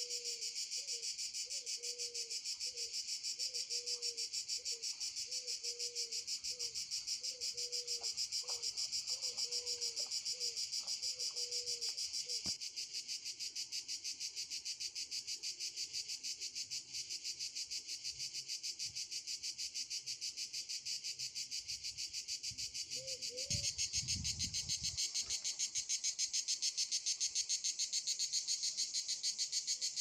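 Cicadas singing: a continuous, fast-pulsing shrill buzz that gets louder about three-quarters of the way through. For roughly the first twelve seconds a lower call repeats steadily over it, and a brief low thump comes just before the louder part.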